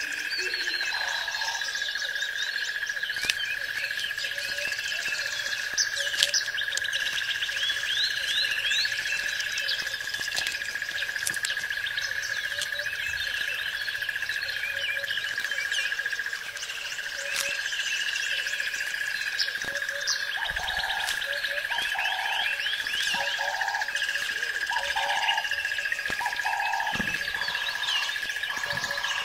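Forest ambience of many small birds chirping and twittering over a steady high-pitched drone. Near the end a run of about six short, lower calls repeats roughly once a second.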